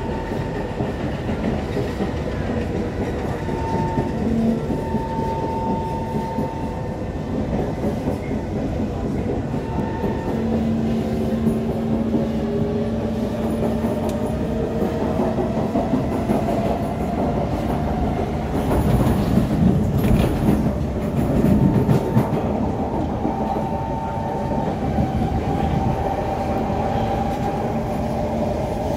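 Kawasaki C151 MRT train heard from inside the car while running on an elevated track: steady wheel-and-rail rumble and clatter with the traction motors' whine. About ten seconds in, one tone starts rising slowly in pitch. The rumble grows louder for a few seconds around twenty seconds in.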